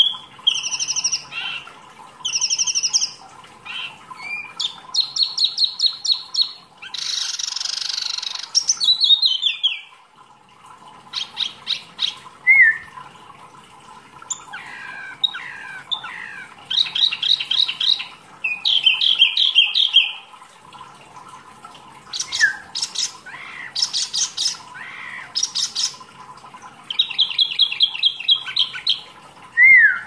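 Caged wambi mini songbird singing a long, varied run of phrases: fast trills and rapidly repeated notes, sharp upward chirps, and a harsh rasping burst about seven seconds in, with short pauses between phrases. A faint steady hum runs underneath.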